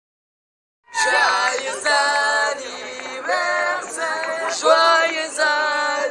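A few voices singing a birthday song together without accompaniment, starting about a second in.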